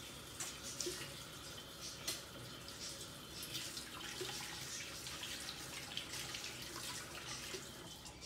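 Water running from a kitchen tap: a faint steady hiss with a few light clicks.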